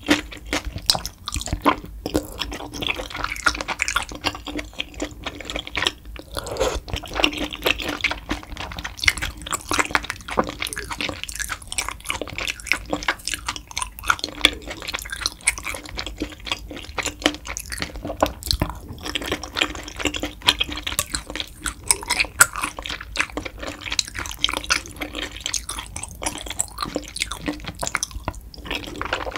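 Wet eating sounds: a person chewing soft, chewy tteokbokki rice cakes, with chopsticks stirring and lifting them from the spicy broth so that it drips and sloshes.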